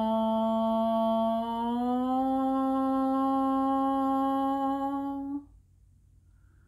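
A woman's voice humming one long held note, sliding up a step in pitch about two seconds in and stopping sharply about five seconds in, then near silence.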